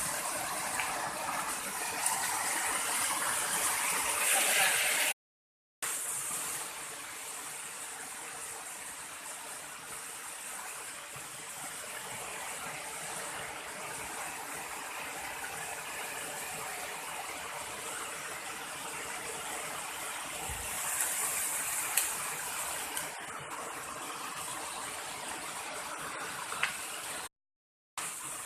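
Steady rushing of flowing stream water, an even hiss with no clear rhythm. It cuts to silence for a moment twice, about five seconds in and near the end.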